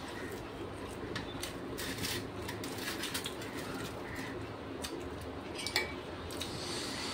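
Fingers mixing and scooping rice on a metal plate, with light scattered clicks and taps of eating, and a louder clink near the end as a metal spoon is moved in the glass curry bowl.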